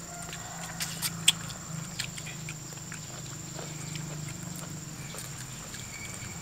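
Close-up eating sounds from people eating with their hands: chewing and mouth smacking, with scattered sharp clicks, the loudest in the first two seconds.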